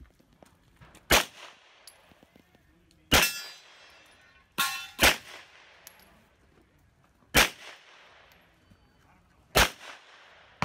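Six pistol shots from a 9mm Smith & Wesson M&P M2.0, fired at an uneven pace with a quick pair about halfway through. Each shot is followed by a short echo.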